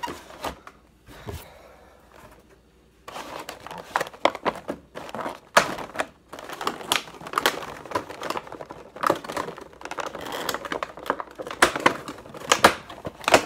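Clear plastic packaging crinkling and crackling as it is handled and pulled off a boxed figure, in quick irregular crackles. It is sparse for the first three seconds, then dense and busy.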